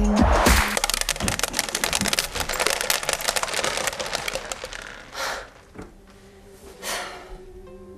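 Beads from a broken necklace scattering and bouncing across a wooden floor: a dense patter of small clicks that thins out over about five seconds. Two short soft rushes of noise follow near the end.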